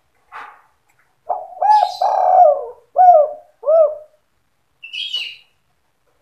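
Spotted dove (tekukur) singing one 'kuk 2' cooing phrase: a soft note, then a rolling run of coos, then two separate closing coos. A short, higher chirp follows near the end.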